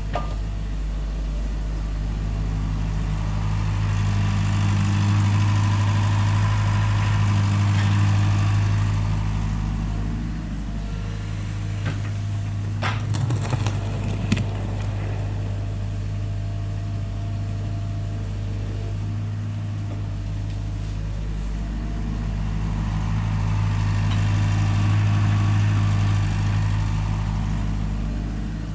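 Excavator's diesel engine running steadily, rising in level twice as it works, with a few sharp metallic clanks about halfway through.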